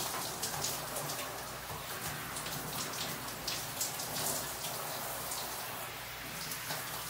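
Shower running: water spraying down and pattering onto the shower floor and glass, a steady hiss full of small drop splashes.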